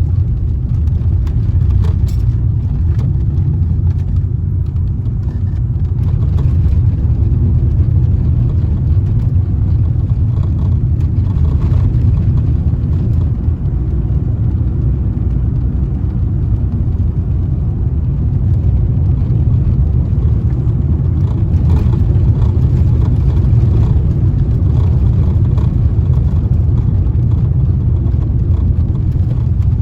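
Steady low rumble of a car being driven along the road, its engine and tyre noise.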